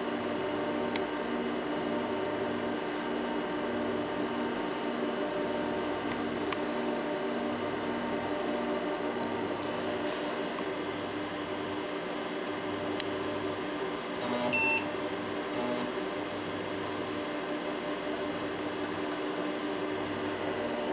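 IBM PC XT (model 5160) running through its power-on self-test: a steady hum from the cooling fan and spinning hard drive with a regular pulsing, and a few light drive clicks. A little over two-thirds of the way in, a single short beep from the PC speaker signals that the self-test has passed.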